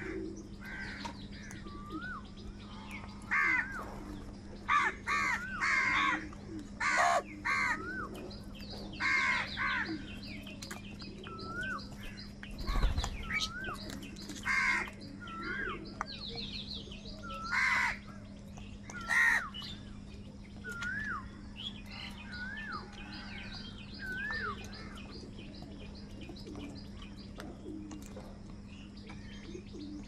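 A flock of house crows cawing repeatedly. The harsh calls come thick for the first two-thirds and thin out near the end, mixed with short whistled notes that rise and fall. A steady low hum runs underneath.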